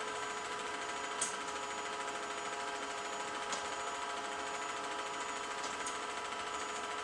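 Film projector running: a steady mechanical whirr with a hum of several steady tones, and a few small clicks.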